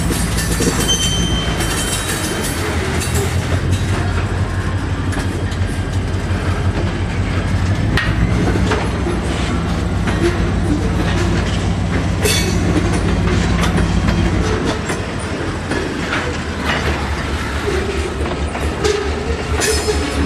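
EMD 645 diesel locomotive prime mover running as the train moves, with wheels clicking over rail joints. The engine's low note changes and eases a little about fifteen seconds in.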